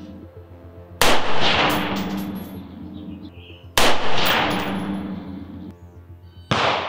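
Three single rifle shots from an AR-15 in 5.56mm, evenly spaced a little under three seconds apart, each trailing off slowly. Slow aimed fire while confirming the rifle's zero.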